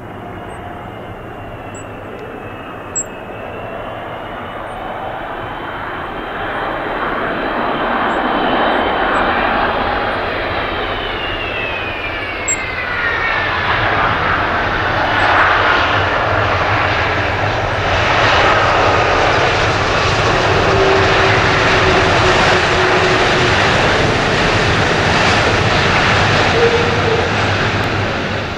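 Boeing 777-200 jet airliner landing. The high engine whine falls in pitch as the aircraft passes, then a louder, broader rush of engine noise builds after touchdown and holds through the landing rollout.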